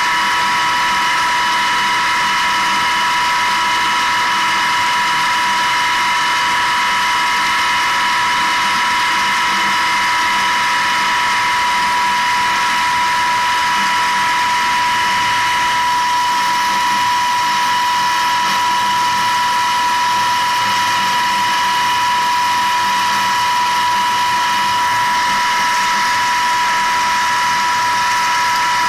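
18.5 kW Tesla disc sand pump with five discs and 20 mm gaps running steadily under load, a constant high whine over a rushing noise as it delivers sand-laden water into a steel drum.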